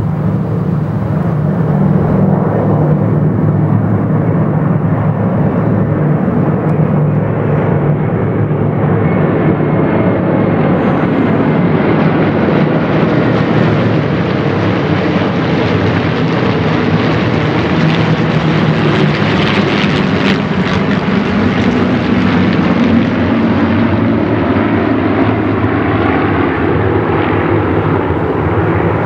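A massed formation of some twenty WWII propeller-driven warbirds flying over together, their piston engines blending into one loud, continuous drone. The sound grows brighter and harsher toward the middle as the formation passes nearest, then eases a little.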